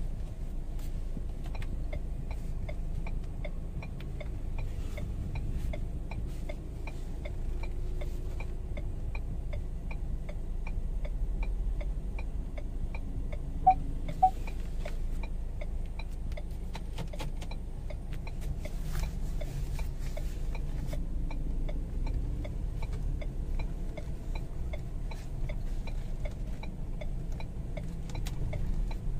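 Turn-signal indicator ticking steadily, a few ticks a second, over the low, steady hum of a Ford Ranger's 2.2-litre diesel engine heard from inside the cab. Two short beeps about halfway through.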